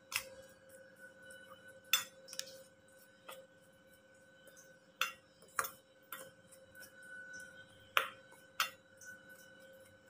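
A steel spoon stirring a dry spice mix in a stainless steel plate, clinking sharply against the metal about eight times at irregular intervals.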